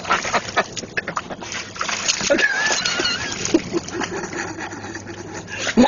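Water splashing and sloshing in uneven strokes as a dog paws and noses for a rock in shallow water, with a high wavering whine about two to three seconds in.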